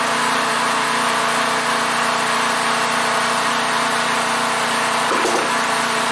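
Portable generator's engine running at a steady speed: a constant drone with several fixed tones.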